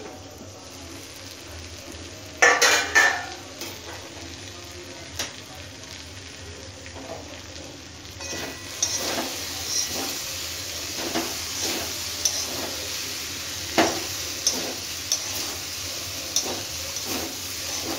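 A steel plate lid is lifted off a steel kadhai with a metal clatter about two and a half seconds in, then a metal spatula scrapes and knocks against the kadhai, stirring frying potato bhujia. The sizzle grows louder from about halfway through.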